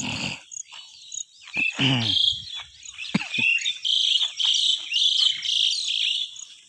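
Birds singing and chirping in short repeated phrases, loudest in the second half, over a steady high insect chirp repeating about every half second.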